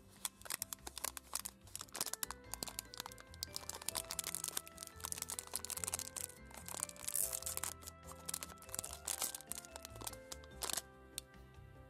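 A Black Thunder chocolate minibar's metallised plastic wrapper being crinkled and torn open by hand, a dense run of sharp crackles, thickest a little past the middle. Background music with held notes plays underneath.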